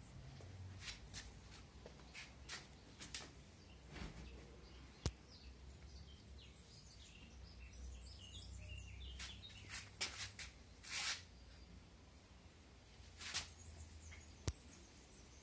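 Quiet outdoor ambience: faint bird chirps over a low rumble, with a scattered series of light clicks and taps, two of them sharper.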